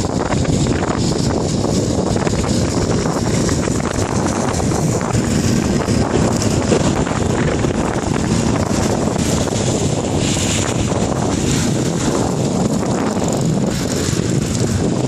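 Steady rushing noise of wind on the microphone during a bicycle ride, with road noise underneath.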